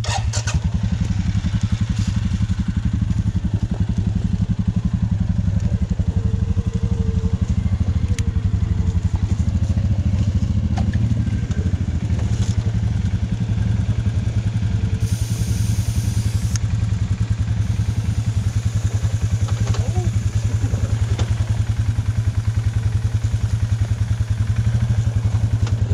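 Dirt bike engine idling steadily. About halfway through comes a short hiss of air let out of a knobby tire's valve, lowering the tire pressure.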